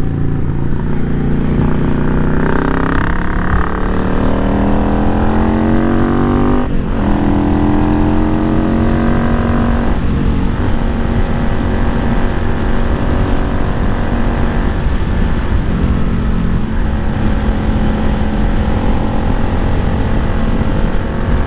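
Yamaha XVS650 V-Star's air-cooled V-twin accelerating under way: its pitch climbs for several seconds, drops sharply as it shifts up about seven seconds in, climbs again, then holds steady at cruising speed.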